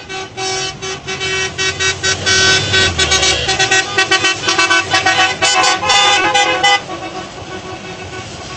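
Car horns honking over and over in quick short bursts from a slow parade of cars, with engines and traffic underneath; the honking stops about seven seconds in.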